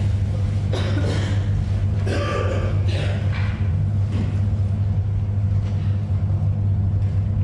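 A church congregation sitting down: rustling and shuffling in several short bursts over the first four seconds or so, over a steady low hum.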